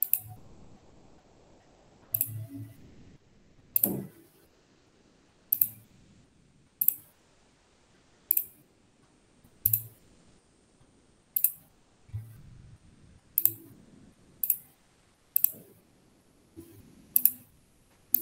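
Computer mouse clicking: single sharp clicks, about one every one to two seconds.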